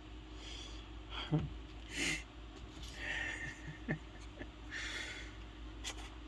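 A man sniffling and breathing unsteadily while tearful with emotion: about four sniffs, with a short voiced sob-like sound about a second in and a few small clicks.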